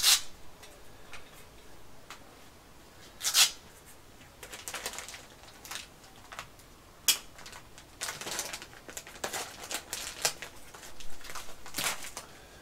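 Crinkling and rustling of a packet of smoking wood dust being opened and handled, with a few sharper, louder crackles near the start, about three and a half seconds in and about seven seconds in.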